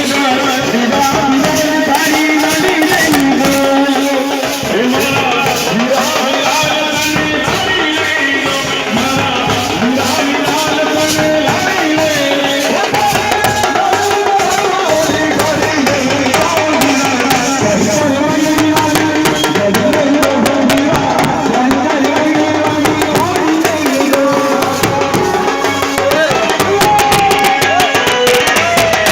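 Indian band playing a Gujarati-style tune: a bending melody line over steady drum and rattle percussion.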